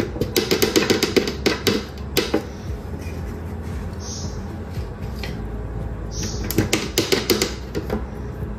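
Metal spoon clinking and scraping against the mixer jar and the peanut butter jar as peanut butter is spooned in: bursts of quick clicks, with a few short soft hisses between.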